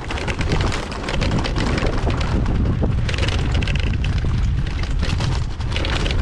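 Pit bike's small single-cylinder engine running while riding a bumpy dirt trail, with wind buffeting the on-board microphone.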